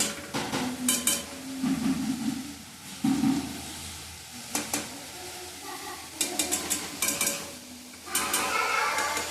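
A utensil stirring and scraping food frying in a pan, with sizzling and a scatter of sharp metal clicks against the pan.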